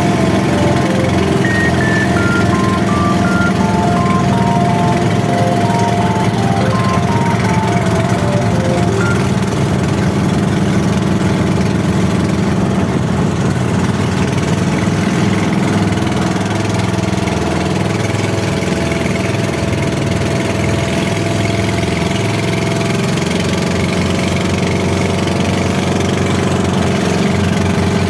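An engine running steadily, with music over it: a melody of short stepping notes is plain for the first several seconds.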